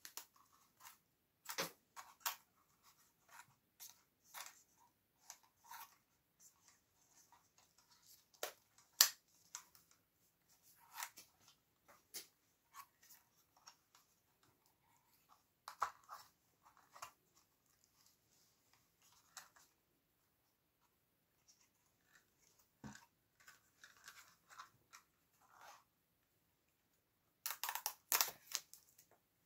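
Scattered light clicks, snaps and rustles of a DJI Mini 2 drone's plastic body, propeller holder and propellers being handled while the drone is unpacked and its folding arms are swung out. A cluster of louder clicks comes near the end.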